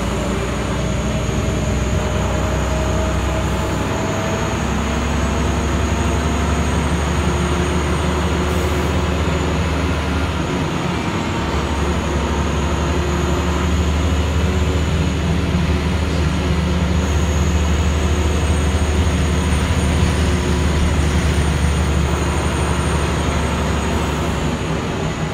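Scania L94IB bus running along the road, heard from inside the passenger cabin: a steady low engine and drivetrain drone with road rumble. The drone dips briefly about eleven seconds in, then grows louder.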